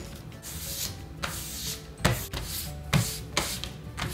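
Hands rubbing and pressing a sheet of paper backing down onto a glued jigsaw puzzle to brush out air bubbles: repeated papery swishing strokes, with a dull thump about two seconds in and another about three seconds in.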